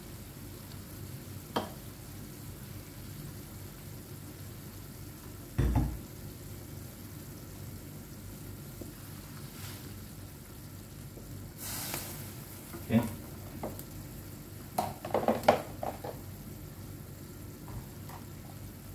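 Wooden spatula stirring a simmering fish and midin fern soup in an aluminium wok, scraping and knocking against the pan: a few single knocks, the loudest a deep thump about six seconds in, and a busier run of scrapes and clicks about fifteen seconds in, over a steady low bubbling.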